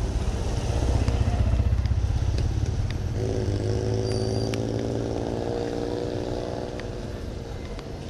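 Motorcycle engine passing close by, loudest about a second and a half in, then holding a steady note that fades near the end.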